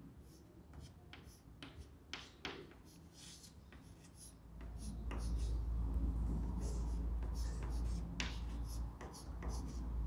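Chalk writing on a blackboard: quick taps and short scratches of the chalk as letters are written. A low rumble comes in about halfway through and stays to the end.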